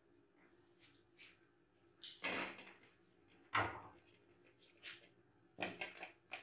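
Kitchen cookware being handled on a countertop: a cooking pot lifted away and a steel bowl set down, heard as about half a dozen separate knocks and scrapes, the longest about two seconds in.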